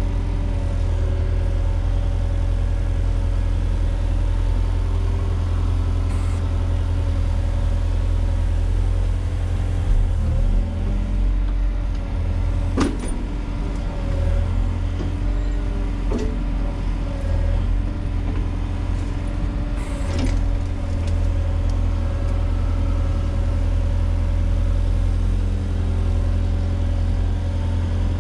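Wheeled excavator's diesel engine running at a steady speed, with three short sharp knocks about halfway through.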